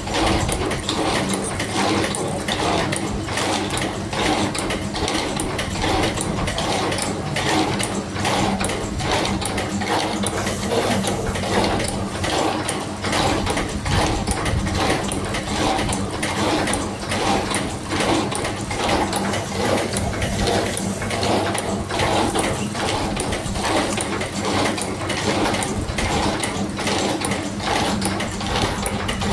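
Automatic spring coiling machine running steadily, with a hum under a regular, rapid mechanical clicking as it feeds wire and coils and cuts small steel springs.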